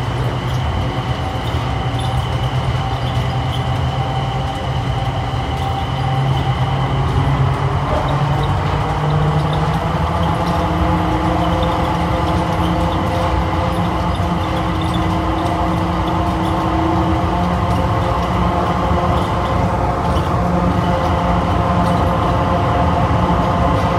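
Dulles AeroTrain car, a rubber-tyred Mitsubishi Crystal Mover, heard from inside as it pulls out of the station and runs through the tunnel. A steady rumble with a motor whine whose tones rise a little in pitch over the first several seconds as it gathers speed.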